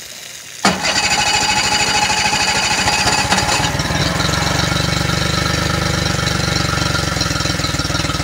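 Yamaha F40 four-stroke 40 hp outboard motor starting up under a second in, with a high whine over the first few seconds, then running at a steady idle.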